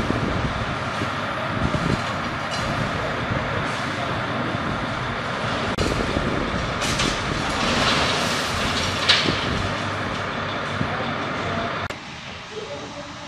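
Heavy truck running close by: a loud, steady engine and rumbling noise with short hissing bursts about seven and nine seconds in. It cuts off suddenly near the end.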